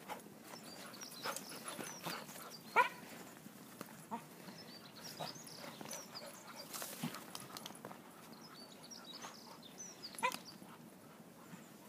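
Spaniels playing in snow, giving short yelps and barks now and then, the loudest about three seconds in and another near ten seconds, with softer high whines in between.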